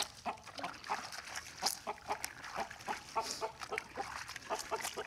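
Wet laundry being rubbed and squeezed by hand in a plastic basin of soapy water: a run of short, irregular squelches and splashes.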